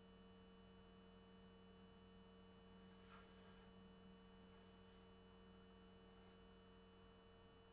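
Near silence: a steady faint electrical hum, with a few soft brief rubbing sounds about three, five and six seconds in.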